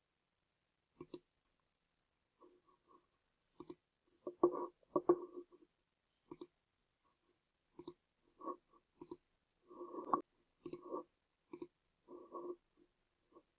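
Computer mouse clicking: a dozen or so short, separate clicks at irregular intervals, some in quick pairs.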